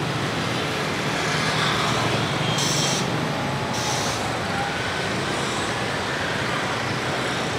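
Busy city street traffic: a steady mix of motorbike, car and bus engines passing, with two short hisses about a second apart a little before the middle.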